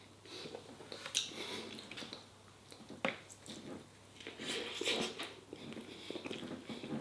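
A person chewing a mouthful of chilli dog with pickled jalapenos, with irregular small clicks of the chewing.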